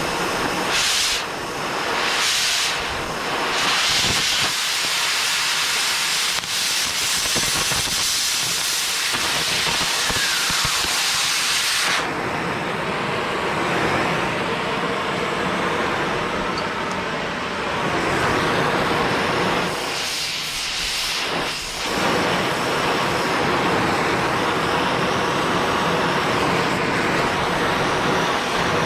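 Oxy-fuel cutting torch flame hissing steadily as it preheats a cast steel part before a cut. About twelve seconds in, the hiss turns duller, and it dips briefly a few times.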